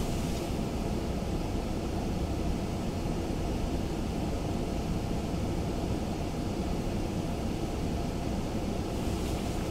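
Hurricane wind buffeting the microphone: a steady, low rumbling noise.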